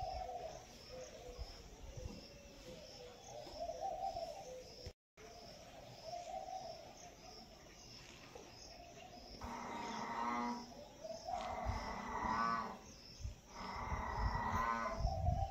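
A series of long, drawn-out animal calls, each about a second long, begins about two-thirds of the way in and repeats every second or two. Underneath is a faint steady background with a regular high chirping.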